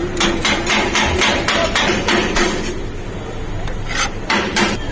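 Quick chopping strikes of a kitchen tool on a hard surface, about five a second, pausing around the middle and coming back as a few more strikes near the end.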